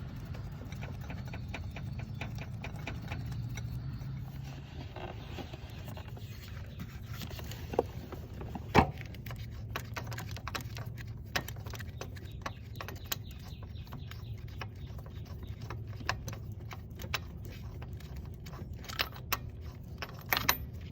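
Hand tools clicking and clinking against metal, irregular sharp ticks with a louder knock about nine seconds in, while a transmission pressure switch is worked on. A steady low hum runs underneath.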